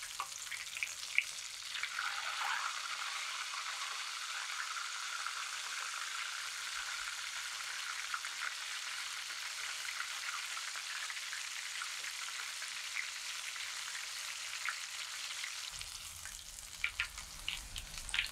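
Breaded bone-in chicken par-frying in duck fat in a stainless steel skillet: a steady sizzle. A few clicks of metal tongs as the pieces are turned, and more near the end as they are lifted out.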